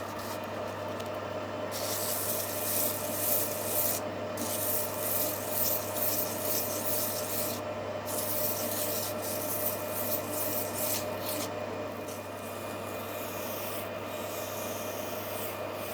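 Metal lathe running with a steady hum while the spinning workpiece is worked by hand with an abrasive, a rasping rub. The rubbing starts about two seconds in, breaks briefly twice, and fades out a few seconds before the end.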